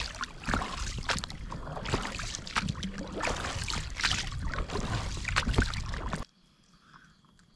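Oars dipping and splashing with irregular knocks and rattles as a small two-person inflatable boat is rowed; the sound cuts off suddenly about six seconds in.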